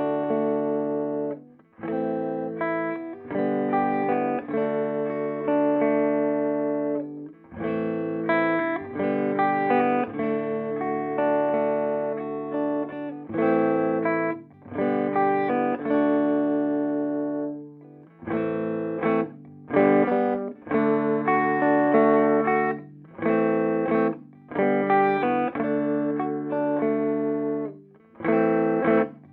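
Electric guitar played through the clean channel of a Peavey Bandit 112 TransTube combo amp, in classic voicing from the high-gain input, a clean tone. Chords are struck and left to ring, with brief breaks between phrases, then shorter, choppier chords in the second half.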